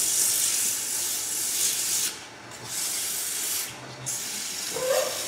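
150-grit sandpaper held against a wooden piece spinning on a lathe: a steady, hissing sanding sound that lets up briefly about two seconds in and again near four seconds.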